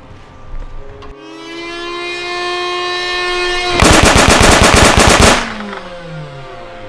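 Motorized Nerf blaster firing full-auto: the motor whine rises in pitch as it spins up, then a rapid burst of darts lasts about a second and a half, and the whine falls away as the motor spins down.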